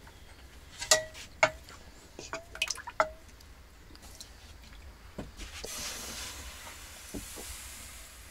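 Tableware clinking: about six sharp clinks in the first three seconds, each with a brief ringing note. A soft hiss follows near the end.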